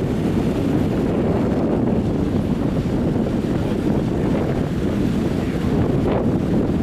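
Steady wind rush on the microphone aboard a moving cruise boat, mixed with the boat's engine and water noise.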